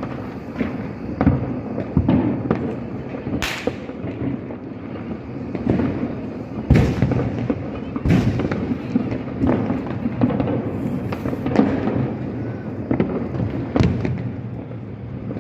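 Diwali firecrackers going off over and over: sharp bangs at irregular intervals, the loudest about seven and eight seconds in, over a continuous dense din of more crackers bursting.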